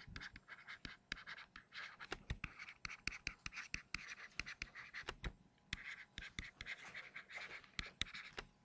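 Pen stylus writing on a tablet screen: a faint, irregular run of quick taps and short scratchy strokes as block letters are written.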